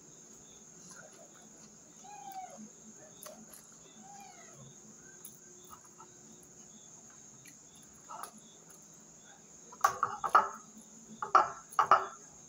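A household pet begging for food at the table gives two soft rising-and-falling cries, about two and four and a half seconds in, and a few louder short cries near the end. Crickets chirp steadily underneath.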